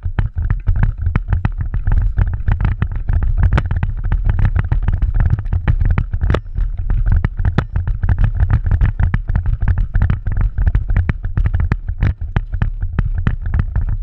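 Running on foot with a body-worn camera: a steady heavy rumble of wind and movement on the microphone, with irregular knocks and clatter of footsteps and gear, a few each second.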